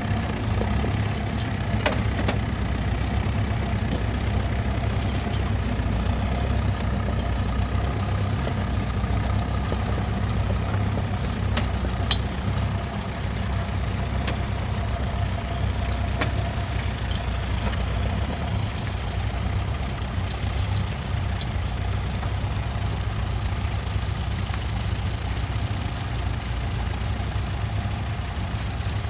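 Massey Ferguson T20 tractor engine running steadily, with a few faint clicks.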